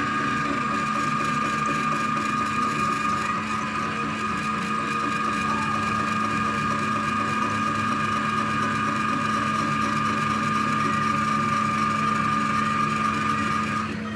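Electric lever-press citrus juicer's motor running steadily as a fruit half is pressed onto the spinning reamer, a hum with a steady whine. It cuts off suddenly just before the end as the lever is lifted.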